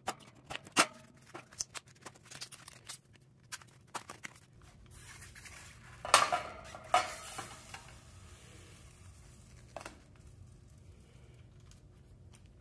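Scattered metallic clicks, taps and scrapes as a thin metal cartridge from inside a beer can is cut and peeled open over the can's metal lid. The loudest scraping comes about six and seven seconds in; after that the handling goes quieter.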